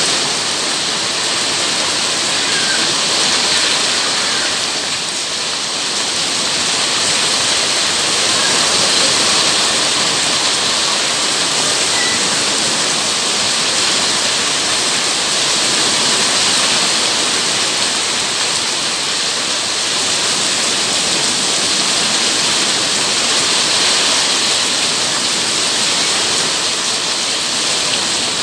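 Heavy rain falling steadily on wet paving, a dense even hiss that swells and eases a little.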